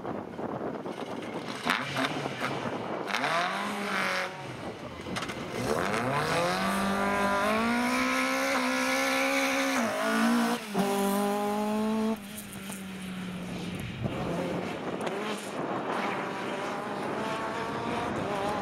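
Rally car engine accelerating hard, its revs climbing through the gears with a short break for a gear change about ten seconds in. The car comes off the throttle about twelve seconds in and grows fainter, then revs up again faintly near the end.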